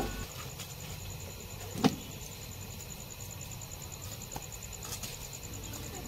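Two sharp knocks about two seconds apart, over a steady low rumble and a thin, high, evenly pulsing insect chirp.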